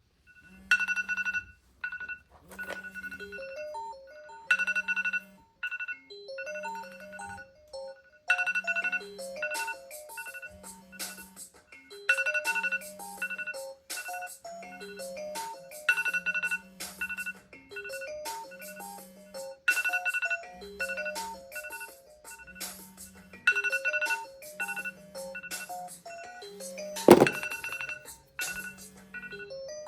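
An iOS alarm tone playing as a looping electronic melody, with high beeps over short mid notes and a repeating bass note. A single sharp knock sounds near the end.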